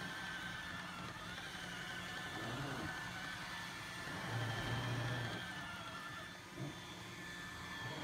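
iRobot Roomba 871 robot vacuum running, a steady whir with a thin high whine over it. Its low hum swells for about a second halfway through.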